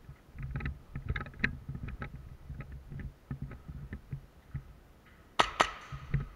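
Footsteps and gear rustling from a player moving through a maze of plywood walls, with small clicks, then two sharp cracks a fraction of a second apart about five seconds in.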